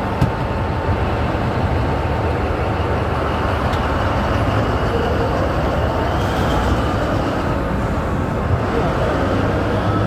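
Large diesel engines of mining haul trucks running with a steady rumble, as a loaded Caterpillar haul truck drives past close by.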